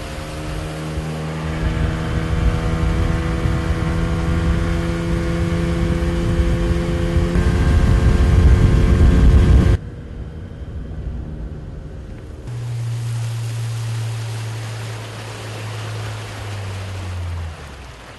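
An engine running hard, its note steady, over a rough noise that grows louder until everything cuts off suddenly about ten seconds in. A few seconds later a lower, steady engine note runs for about five seconds and stops.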